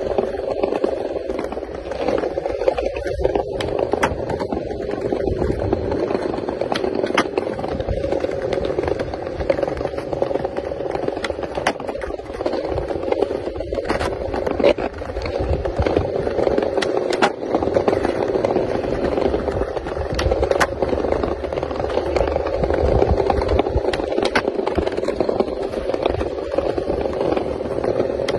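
Skateboard wheels rolling over smooth stone tile paving: a steady rolling noise, broken by scattered sharp clicks and knocks from the board.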